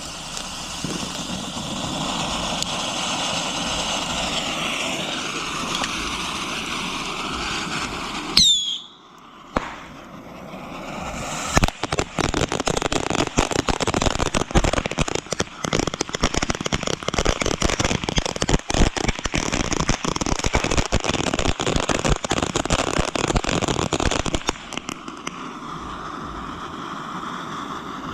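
Consumer ground fireworks: a steady hissing spray for about eight seconds ends in a brief whistle. After a short lull comes a long run of rapid crackling pops lasting about thirteen seconds, then a quieter steady hiss.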